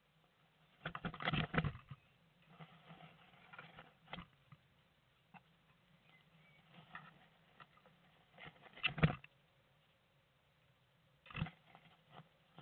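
Blue tit moving about in its nest inside a wooden nest box: scratchy rustling of nest material and scraping of claws on the wood. Three louder bursts, about a second in, around nine seconds and near the end, with faint rustles and ticks between.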